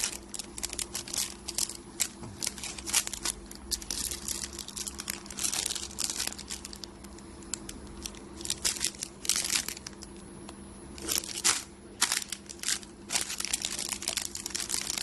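Horizontal flow-wrap packaging machine running: a steady motor hum under a dense, irregular stream of plastic-film crinkling and clicks.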